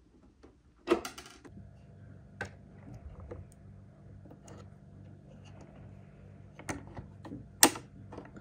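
Small plastic clicks and sharp clacks from hands working on a 1/16 scale RC Toyota Land Cruiser 80's spare wheel, the loudest about a second in and near the end. Under them is a low steady hum that starts about a second and a half in.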